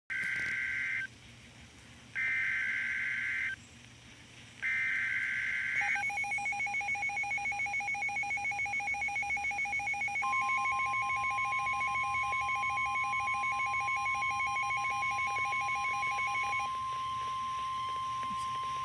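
Emergency Alert System SAME header: three short bursts of warbling data tones with pauses between them, announcing a severe thunderstorm warning. From about six seconds a rapid pulsing two-tone beep sounds, and from about ten seconds the steady NOAA Weather Radio warning alarm tone joins it and carries on after the beeping stops.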